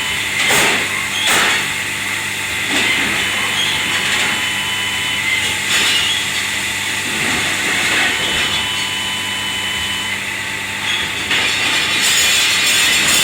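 Commercial kitchen dish-area noise: a few sharp clatters of dishes or metal over a steady machine hum. A louder hiss sets in near the end.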